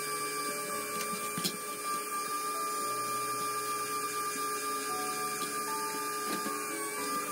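Small pen-style rotary tool whining steadily as it drills fine holes in a plastic model part. Its pitch dips briefly near the end as the bit loads up, and there is a single click about a second and a half in.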